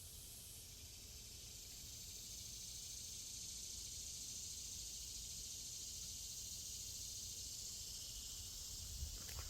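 A steady, high-pitched hiss-like drone of insects, that swells slightly over the first two seconds and then holds. There is a single brief knock near the end.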